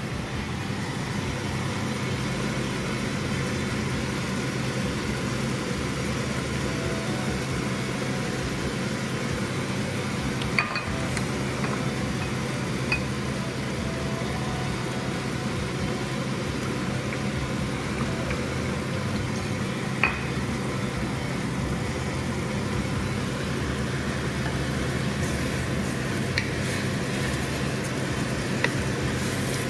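Ground beef sizzling in a hot wok as it is stir-fried, with a handful of sharp clicks as the wooden spatula knocks the pan. A low steady hum runs underneath.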